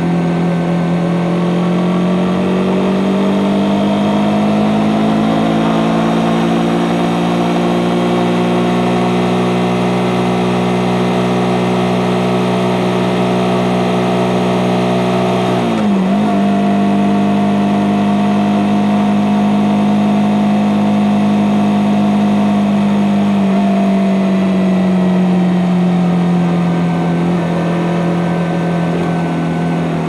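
Suzuki GSX-S150's single-cylinder four-stroke engine running through its stock exhaust, its revs rising slowly and steadily for the first half. About sixteen seconds in the pitch dips sharply and picks back up, then holds steady and eases down a little near the end.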